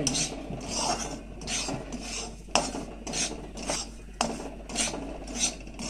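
A spatula scraping semolina around a metal kadhai as it roasts in ghee, in repeated rasping strokes a little under two a second.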